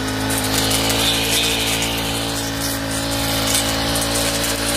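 Brush cutter's small engine running steadily at low rpm while its sharpened metal blade cuts through tall, woody weeds, the engine's drone over a constant rough cutting noise.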